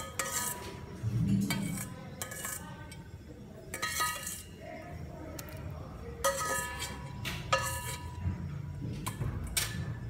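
Metal kitchen utensils and cookware clinking: about a dozen sharp metallic knocks at irregular intervals, each ringing briefly.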